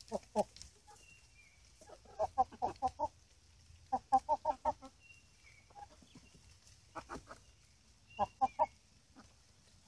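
Chickens clucking in quick runs of several short clucks, five runs spread a second or two apart.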